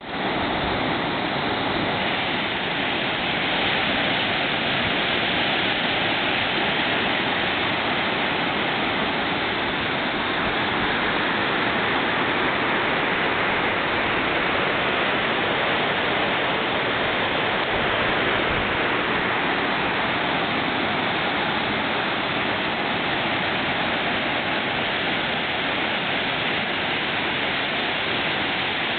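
Whitewater rapids of a creek rushing over and between rocks: a steady, even rush of water.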